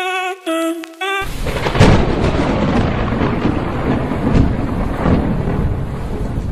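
Music of short repeated notes cuts off abruptly about a second in, giving way to a thunderstorm sound effect: steady heavy rain with thunder rumbling, the loudest clap about two seconds in and further rumbles later on.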